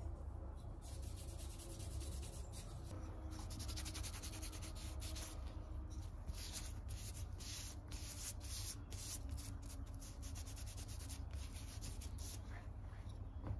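A cloth rag rubbing back and forth over the wooden body of an antique jack plane, wiping on finish in quick repeated strokes.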